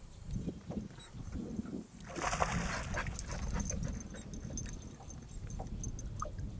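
A dog whimpering and whining in short, high calls. There is a brief rush of noise about two seconds in.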